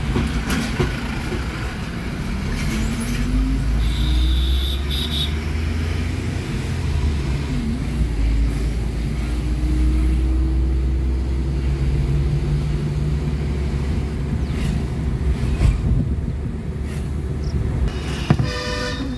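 Car engine and road rumble heard from inside the moving car's cabin. The engine note rises slowly twice as the car accelerates.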